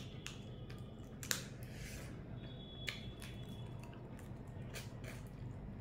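A person eating close to the microphone: chewing with scattered sharp clicks and crunches, the loudest about a second in and again near three seconds.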